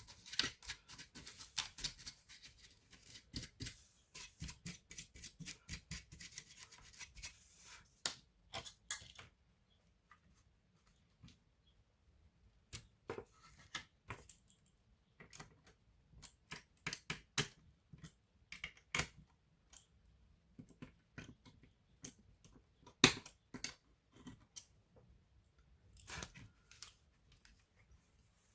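Hand work on an opened laptop: fast scratching and clicking for the first eight seconds or so, then separate sharp clicks and taps of small tools and plastic and metal parts with short pauses between them.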